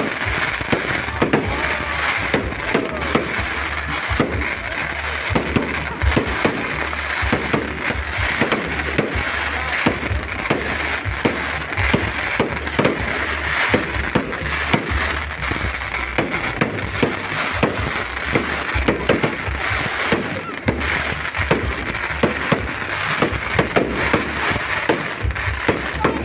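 Fireworks display: a continuous run of bangs and crackling, several reports a second, with no let-up.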